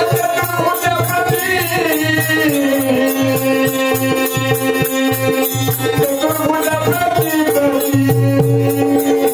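Marathi shahiri folk song: a male singer draws out one long sung note, bending into it and holding it for several seconds, over percussion keeping a quick, even beat of about four strokes a second.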